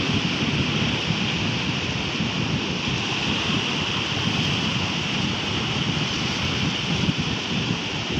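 Big waves of surf washing steadily, with wind buffeting the microphone in a constant low rumble.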